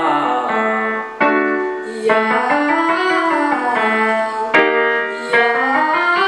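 Piano playing short stepped scale runs that rise and fall, each new run starting a little higher, the pattern of a vocal warm-up accompaniment.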